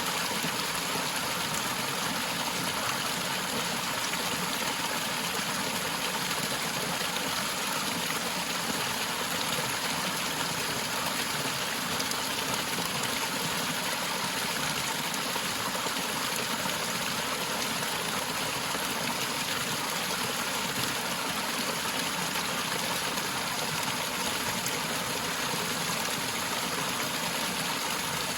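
Forest waterfall: a steady, unbroken rush of falling and running water.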